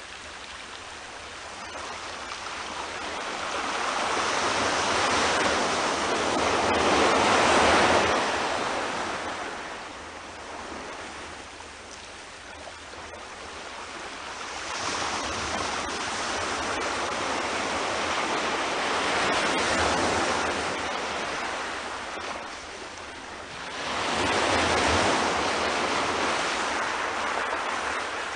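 Small sea waves breaking on a sandy beach and low rock ledge and washing up the shore, the surf rising and falling in three long swells.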